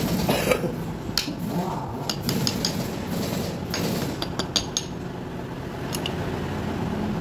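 Light metallic clicks and clinks, a dozen or so in small clusters, as steel planer blades and the blade clamp are handled and fitted into the cutter drum of an upturned electric hand planer. A steady low hum runs underneath.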